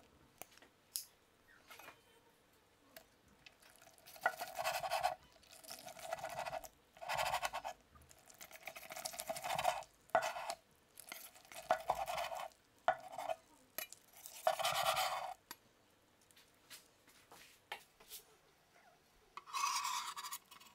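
A cleaver slicing through a glazed chicken thigh on a wooden cutting board: a series of short rasping cuts from about four seconds in until about fifteen seconds, and one more near the end, with a few faint knocks in between.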